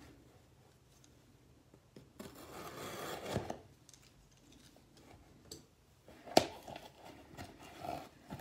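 Small cardboard box being opened by hand: a scraping tear lasting about a second and a half, about two seconds in, as the cardboard flap pulls free, then a sharp snap of cardboard a few seconds later and light handling rustles.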